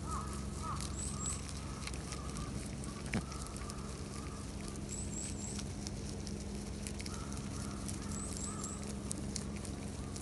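Rabbits chewing and tearing fresh leaves: a run of small crisp crunching ticks over a steady low hum. Short high chirps, two or three at a time, come in three times, and there is one sharper click about three seconds in.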